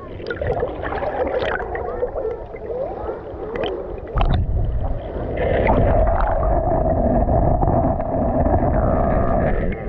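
Shallow sea water heard from a GoPro camera held underwater: gurgling and bubbling with a few sharp clicks. About four seconds in, a louder low rumble sets in and carries on to the end.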